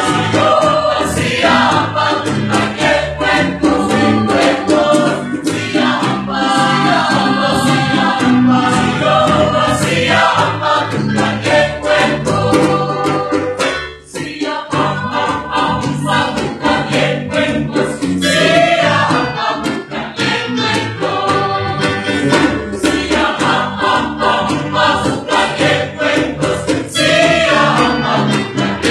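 Mixed student choir singing in parts, with a brief break in the sound about halfway through.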